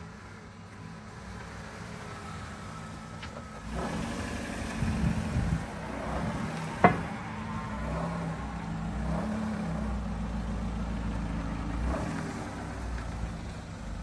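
A car engine running steadily at low revs, louder from about four seconds in, with a single sharp knock about seven seconds in.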